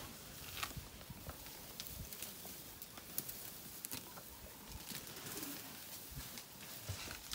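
African elephants feeding in long grass: scattered rustles and snaps as trunks pull and tear the grass, with birds calling faintly in the background.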